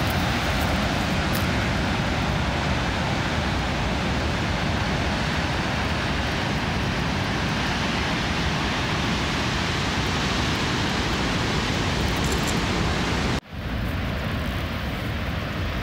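Steady rush of wind on the microphone mixed with heavy surf breaking on the rocks below the cliffs. About thirteen seconds in the sound cuts out for an instant, then the same rush carries on a little quieter.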